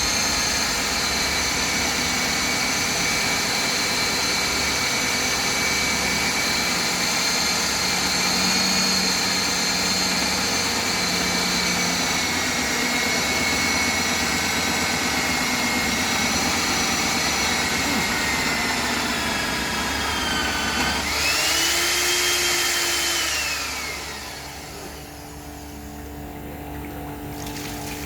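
Hilti DD 160 diamond core drill running steadily as it cores concrete, its motor whine sagging slightly in pitch under load. About three quarters through comes a brief louder hissing surge with a tone that rises and falls, after which the drill winds down and the sound drops to a quieter background.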